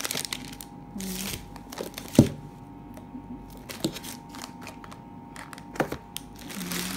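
Plastic food tubs and packaging handled on a table: a few sharp knocks and short rustles, the loudest knock about two seconds in.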